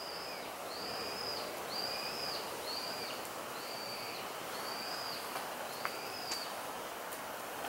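A high, arching call, rising then falling, repeated about once a second, about seven times, from an animal that is not in view, over a faint outdoor background. A few light ticks come in the second half.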